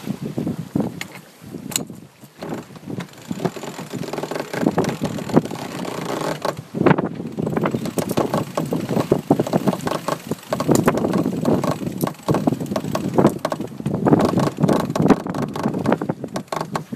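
Sailing yacht's sheet winch being cranked with a winch handle, its ratchet clicking rapidly in long runs.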